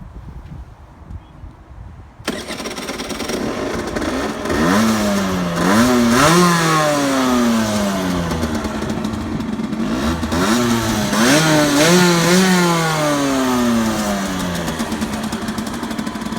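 A 2009 Derbi GPR 50's 50cc single-cylinder engine starts suddenly about two seconds in and idles. It is then revved in two sets of quick throttle blips, the pitch climbing and falling with each one, and settles back to idle near the end.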